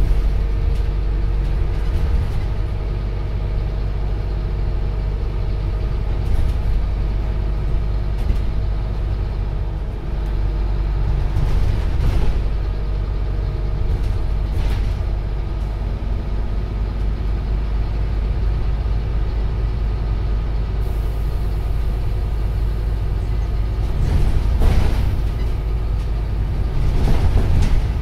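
Cabin sound of a Scania Omnicity CN230UB single-deck bus on the move: its 9-litre five-cylinder diesel gives a steady low rumble over road noise. A few short noisy bursts come through about 12, 15, 25 and 27 seconds in.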